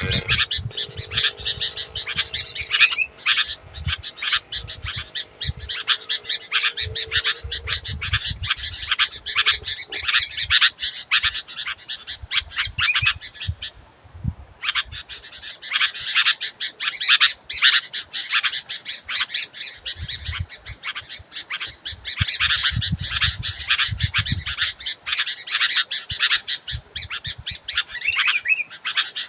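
Sooty-headed bulbul (kutilang) chattering and calling nonstop, a dense run of short sharp notes, broken by a pause of about a second about halfway through.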